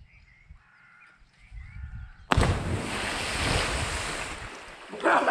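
Heavy splash of a person plunging into a lake after a jump from a high bridge, about two seconds in: a sudden crash of water that churns and dies away over the next two seconds.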